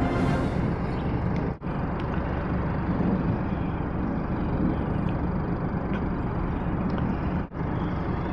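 Steady outdoor rumble and hiss of street noise, broken by two brief dropouts, about one and a half seconds in and near the end.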